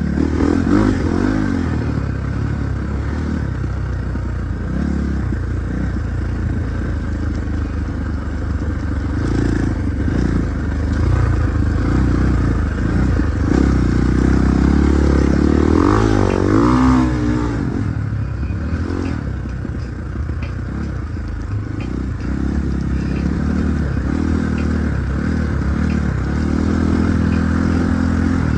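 Husqvarna 450 motorcycle engine running, its pitch rising and falling as it is revved about halfway through, with scattered knocks and rattles.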